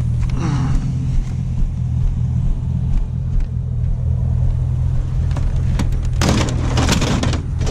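Pickup truck engine idling steadily with a low hum, and a loud noisy burst lasting about a second near the end.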